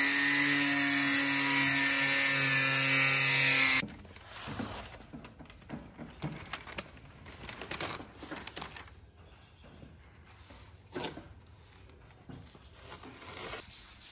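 Small angle grinder with a thin cutting disc slicing through a carbon-fibre panel: a loud, steady whine with hiss that cuts off suddenly about four seconds in. After that come quieter, scattered rustles and taps as masking paper is pressed onto a bumper.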